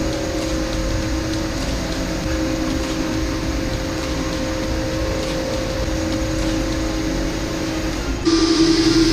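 Monarch circular knitting machine running: a steady mechanical whirring rattle over a constant hum. Near the end it abruptly gets louder.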